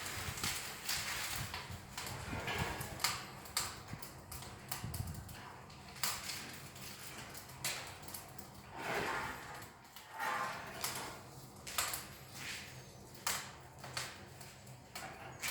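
Wood fire burning in a fireplace insert, crackling with irregular sharp pops as it catches fully, over a low rumble in the first few seconds.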